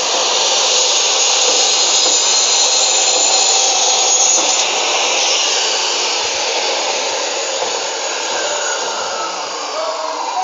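A Maktec 2000-watt saw with a 7-inch, 100-tooth aluminium-cutting blade running steadily as it saws through beef bone and meat, its pitch wavering near the end.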